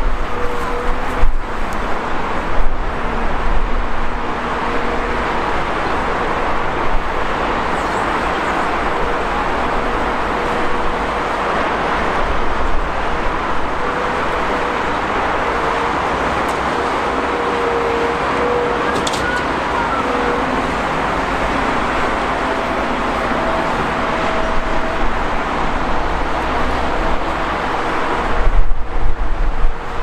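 Steady highway traffic noise with a wheeled excavator's diesel engine running as it loads soil into a tipper truck. A few sharp knocks come in the first few seconds.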